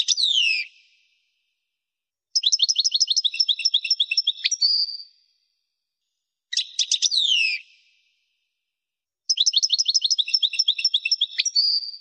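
European goldfinch song: a short burst of sharp down-slurred notes, then a long rapid twittering trill of about eight notes a second that ends in a buzzy note, the sequence given twice.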